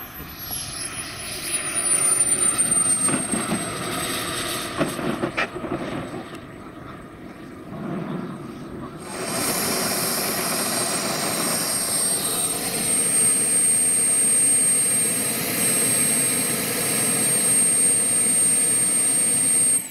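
Wren 160K Pro model jet turbine whining at a high pitch. The whine falls as the throttle comes back for landing. About nine seconds in it switches abruptly to a steady, louder whine with a rushing sound underneath as the jet sits on the runway with the turbine still running. It cuts off suddenly at the end.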